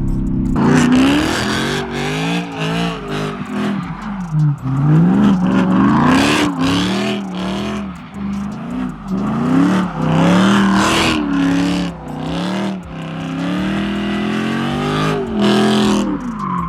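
Straight-piped car engine, with no catalytic converters or muffler, being revved hard up and down over and over during donuts. Its pitch climbs and falls every second or two, with brief drops between the pulls.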